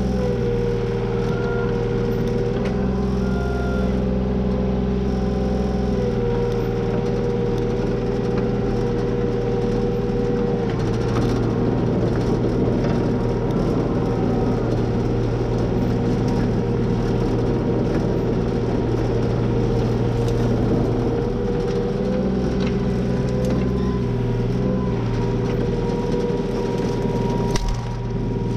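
Takeuchi mini excavator's diesel engine running steadily while the boom and bucket are worked, its pitch dipping and recovering several times as the load changes. There is a sharp knock near the end.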